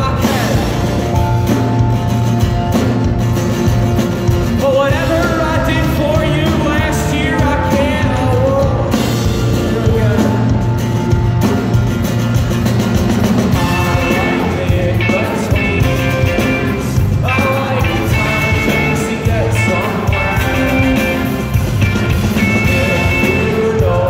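Rock band playing live through an arena PA, with drum kit, bass, and acoustic and electric guitars.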